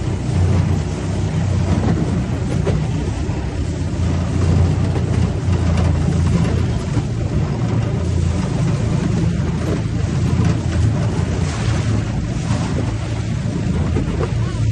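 A boat motor running steadily at a constant speed, a loud low hum with a rushing noise over it.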